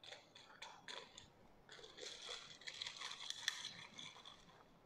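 Long metal bar spoon stirring a tall glass drink, a run of light clinks and scrapes against the glass.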